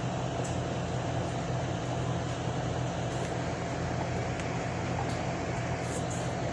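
A steady machine-like hum under an even hiss, unchanging throughout.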